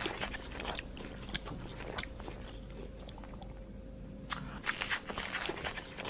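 Giraffe chewing: faint, irregular crunching and small clicks, with a few sharper clicks between about four and five seconds in.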